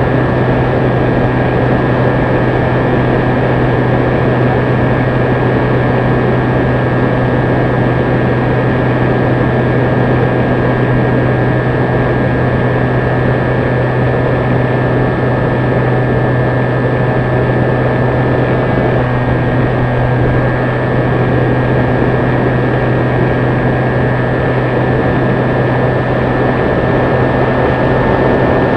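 Electric motor and pusher propeller of a HobbyKing Sky Eye foam RC plane in cruise, heard from the onboard camera: a steady low drone with a thin high whine over airflow hiss, holding even throughout.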